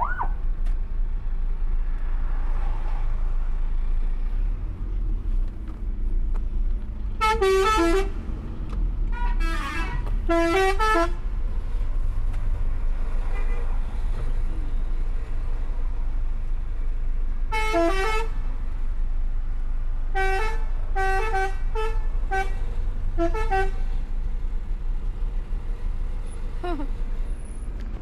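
Telolet multi-tone musical horns playing stepped little tunes in several blasts over a steady low traffic rumble: three longer blasts about a quarter of the way in, another near the middle, then a quick run of short toots.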